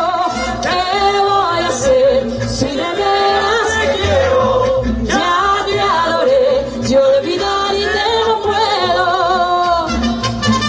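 A woman singing with a live mariachi band: violins, guitars and a deep guitarrón bass, playing a huapango.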